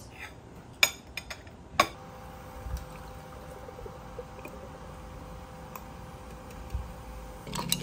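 Canned drink poured into a glass jar, a steady splashing pour filling the jar, after two sharp clicks in the first two seconds.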